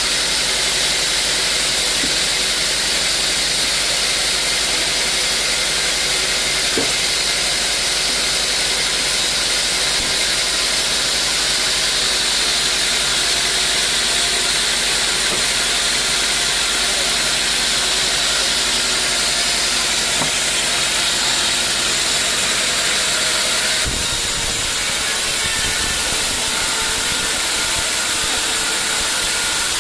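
Sawmill machinery running steadily, a constant loud hiss over a machine hum. The low end of the sound shifts abruptly about 24 seconds in.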